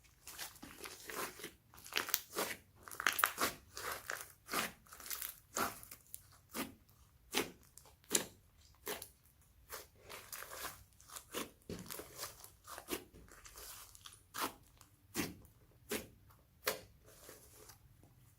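Slime being squeezed and kneaded by hand, making sharp crunching pops about once or twice a second.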